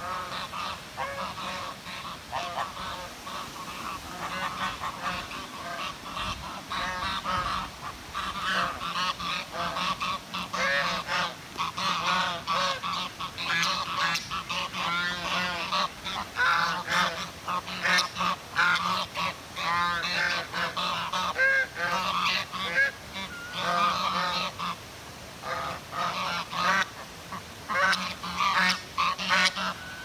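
A flock of domestic geese honking, many short calls overlapping without a break.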